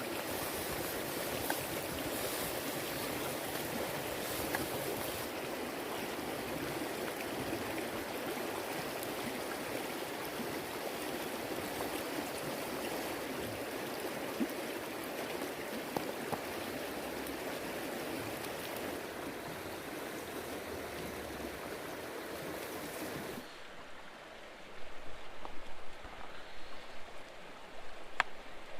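Steady rushing of a flowing stream. About 23 seconds in the sound changes abruptly to a duller, quieter water background, with a few louder uneven sounds near the end.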